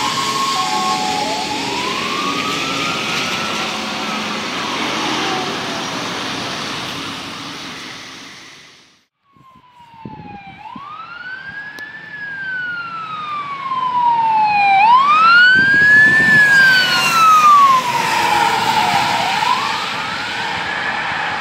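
Fire engines on an emergency run with wail sirens, each tone slowly rising and falling, and tyres hissing on a wet road. The first siren fades as its truck drives away and cuts out about nine seconds in. A second siren starts a second later and grows loudest as that truck passes.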